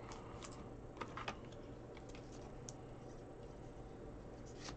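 A few faint light clicks and taps of a trading card and a clear plastic card holder being handled, over a low steady hum.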